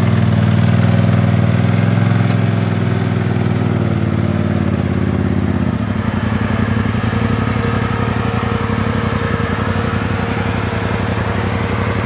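Side-by-side UTV engine running at low speed while the machine crawls over rock. About halfway through, the sound changes to a lower, evenly pulsing engine note.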